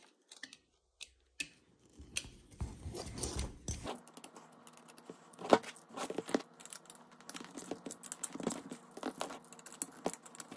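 Hand tools tightening screws and nuts on a metal bracket: irregular small clicks, scrapes and metallic taps of a driver and wrench, with a sharper click about five and a half seconds in. A faint steady hum starts about four seconds in.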